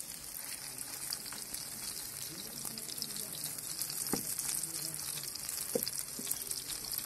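Chapli kebab patties frying in shallow oil on a large tawa: a steady hissing sizzle, with a couple of light taps about four and six seconds in.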